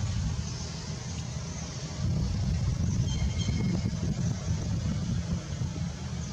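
Steady low background rumble, a little louder from about two seconds in, with a brief faint high tone near the middle.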